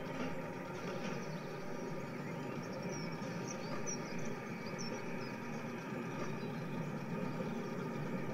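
Added railway sound of a train running: a steady, even running noise, with a few short high chirps partway through.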